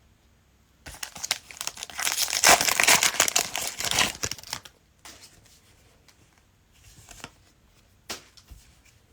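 Cellophane wrapper of a trading-card cello pack being torn open and crinkled for about four seconds, followed by a few faint light rustles as the cards are handled.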